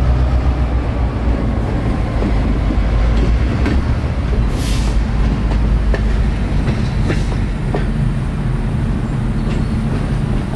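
Freight train rolling slowly past on jointed track: a refrigerated boxcar's wheels and trucks rumbling over the rails, with scattered sharp metallic clicks and clanks and a brief high-pitched burst about halfway through.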